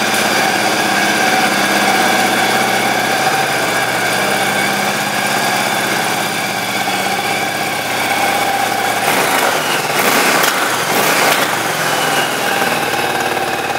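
2005 Yamaha V-Star 1100 Silverado's carbureted, air-cooled 1100 cc V-twin idling steadily on choke through its stock side pipes. A brief rush of rougher noise comes about nine to eleven seconds in.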